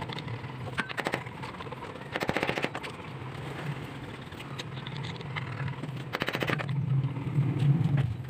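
Metal hand tools handled on a concrete ledge: two quick rattling runs of clicks, about two seconds in and again about six seconds in, over a steady low hum.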